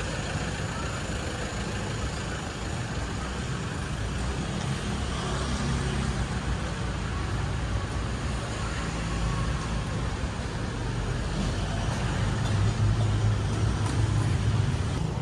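Street traffic: a steady low rumble of passing vehicles, swelling near the end as one passes close.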